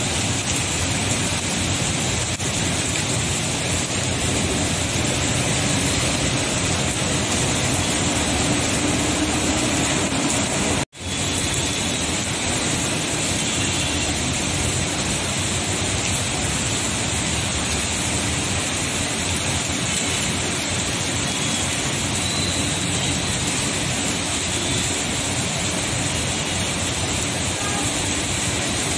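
Heavy rain pouring onto a flooded road: a steady rush of rain, with vehicle tyres swishing through the standing water. The sound cuts out for an instant about eleven seconds in.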